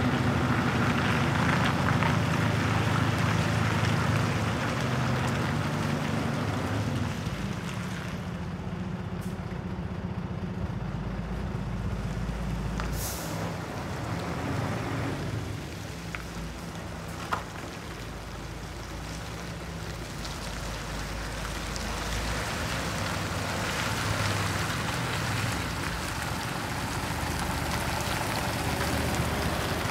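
Scania truck's diesel engine running as it drives slowly across a gravel yard, louder at first, fading as it moves off and rising again as it comes close near the end. A short air-brake hiss about thirteen seconds in.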